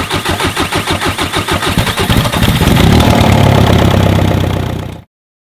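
The Seat Ibiza Cupra's forged 1.9 TDI diesel engine cranks over on the starter in even pulses, catches about two seconds in and runs, louder than the cranking. The sound cuts off suddenly near the end.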